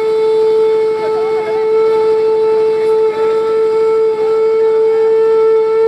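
Conch shell (shankh) blown in one long, steady note, with a microphone held close to it.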